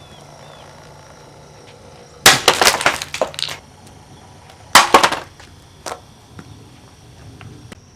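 Plastic 12-inch oscillating table fan being smashed: a loud crash with a clatter of breaking pieces lasting about a second, a second sharp smash a couple of seconds later, then a small knock.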